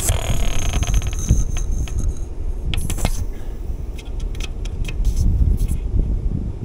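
Compressed gas hissing at a bicycle's rear tubeless tyre valve for about two seconds, with a steady high whistle in it, while the tyre that keeps losing pressure is topped up from a CO2 cartridge. A few sharp clicks and knocks follow, over a low wind rumble on the microphone.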